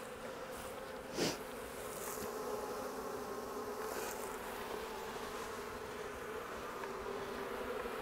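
Honeybees from an opened hive buzzing in a steady hum, with one brief louder swell about a second in.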